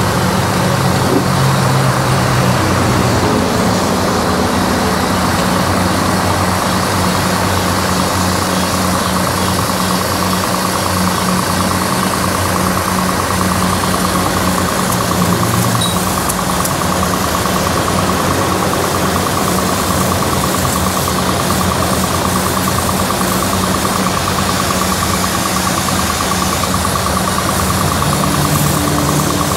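A 2 hp high-pressure car-wash pump running steadily under test, with the hiss of its water jet spraying from the lance.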